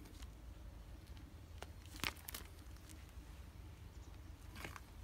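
Faint scattered crunches and clicks of loose gravel shifting as a kitten scrambles about and a person's sneakers move on it. The sharpest click comes about two seconds in, with a few more near the end, over a low steady rumble.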